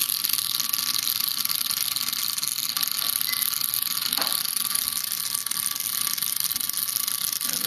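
Small vibrobot's pager vibration motor running steadily, its wire legs rattling in a rapid buzz against a wooden tabletop as it walks.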